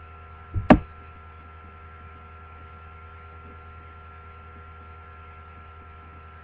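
Steady electrical hum with several fixed tones, broken a little over half a second in by a sharp double knock.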